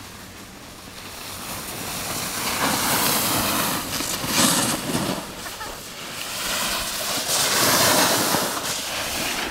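Snowboard sliding and scraping downhill over packed snow, with wind rushing across the microphone. The rush grows louder after about a second, dips briefly near the middle and swells again near the end.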